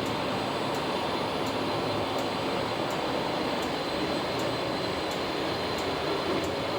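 Steady machinery or ventilation noise, like a fan or air handling running, with a faint high tone and faint regular ticks.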